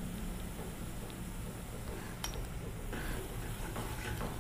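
Spice powders frying faintly in coconut oil in a pan, with a spoon clinking against the pan as it is stirred; one sharper clink about two seconds in.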